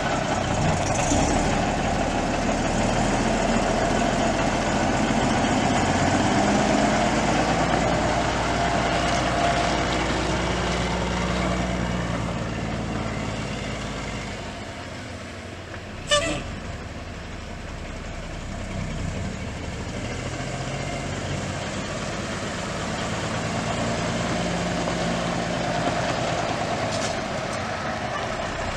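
A Cummins Big Cam inline-six turbo diesel in a 1987 Peterbilt 379 semi truck, running with its pitch rising and falling as engine speed changes. There is a single sharp click about halfway through.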